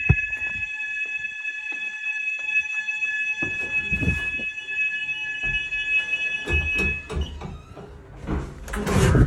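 Fire alarm sounder giving a steady high continuous tone during a test, cutting off about seven seconds in as the alarm is silenced. Knocks and bumps sound throughout, with a loud burst of noise near the end.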